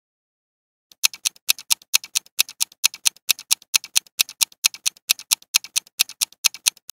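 Countdown timer sound effect: a clock-like ticking, rapid and even, alternating louder and softer strokes, starting about a second in and stopping shortly before the end. It counts down the seconds given to answer the quiz question.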